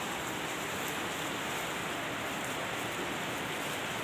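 Steady rain, an even hiss with faint scattered ticks.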